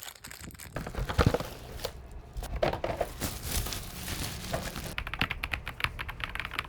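Crinkling and rustling handling noise with scattered clicks, then, from about five seconds in, a quick run of keystrokes on a Royal Kludge RK-S98 mechanical keyboard with linear switches.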